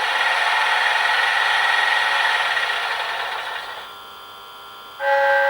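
A sampled locomotive noise from an ESU LokSound 4 decoder plays through a small model-locomotive speaker, a steady rasping hiss that fades out about four seconds in. About five seconds in, a station announcement chime of a few held tones begins.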